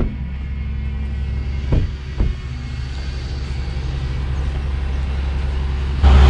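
Diesel tow truck engine idling with a steady low drone, which jumps suddenly louder near the end when close beside the truck. Two dull knocks come about two seconds in.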